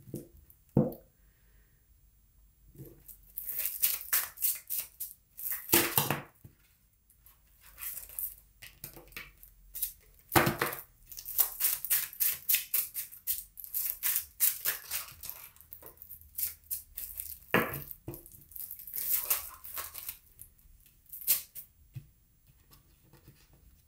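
A deck of tarot cards being shuffled by hand: bursts of quick card flicks and rustling with short pauses between.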